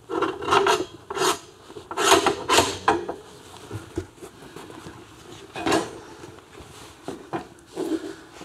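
Homemade steel-tube motorcycle race stand scraping and knocking as it is hooked under the rear swingarm and levered up on a concrete floor: a run of short rasping scrapes and clunks in the first three seconds, then a few more later.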